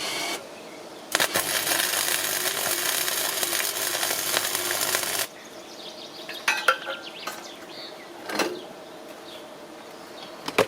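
Metal repair work on a deep ripper: a harsh, crackling noise for about four seconds starting about a second in, then scattered sharp metal clinks and knocks.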